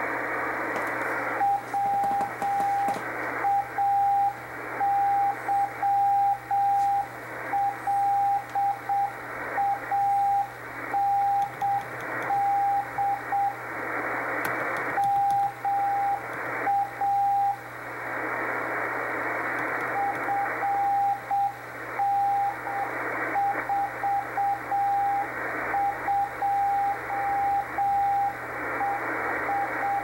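Slow Morse code (CW) from the experimental station WI2XJP on 5058 kHz, heard through an Icom IC-R8500 shortwave receiver: one steady mid-pitched tone keyed on and off in dots and dashes over band-limited hiss and static. The keying pauses twice, for a second or two each time, just after the middle.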